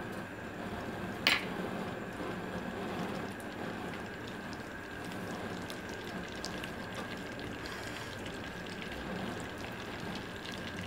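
Butter melting and starting to sizzle in a metal pot over a gas burner: a steady hiss, with one sharp click about a second in.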